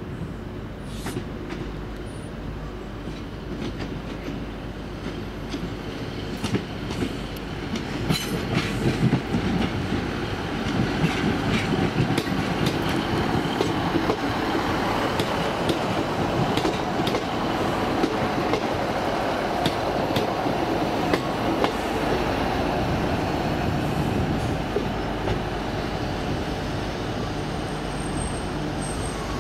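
Diesel passenger train running through a station, its engine droning steadily while the wheels click over rail joints. It grows louder about eight seconds in.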